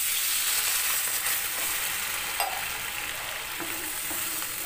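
Water poured into a hot non-stick frying pan of potato and green banana pieces fried in mustard oil and spice paste, setting off a loud hissing sizzle that slowly eases as the pan fills. This is the masala being deglazed with water to start the curry's gravy. A short click about halfway through.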